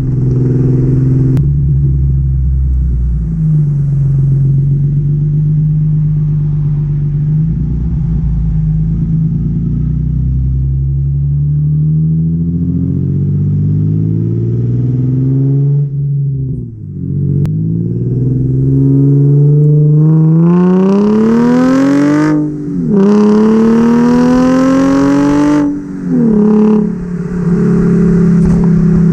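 Nissan 350Z's 3.5-litre V6 heard at the tailpipe through an exhaust with test pipes in place of the catalytic converters, nearly straight-piped and much louder. It cruises steadily and dips briefly past the middle. Then the revs climb twice under acceleration, each climb ending in a sudden drop, before it settles to a steady cruise near the end.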